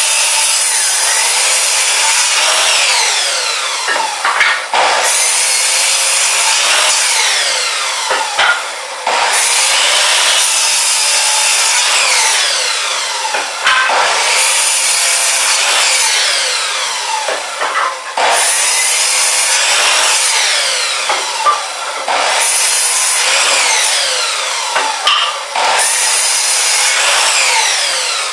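Electric chop saw cutting through wood, a loud continuous run broken by brief dips about every four to five seconds as cut follows cut.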